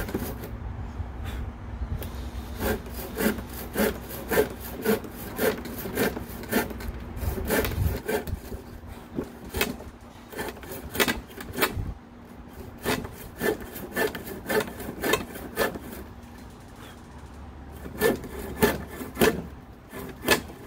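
Crosscut hand saw cutting across a 2x4, its teeth rasping through the wood in steady back-and-forth strokes at about two a second. The strokes ease off briefly about three-quarters of the way through, then pick up again.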